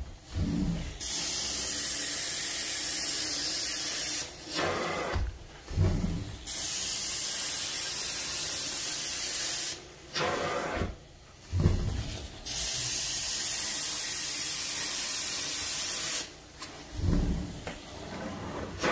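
Carpet-cleaning extraction wand spraying and sucking water out of an area rug: a steady hiss that runs for three to four seconds at a time in repeated strokes. It drops out briefly between strokes, with low thuds in the pauses.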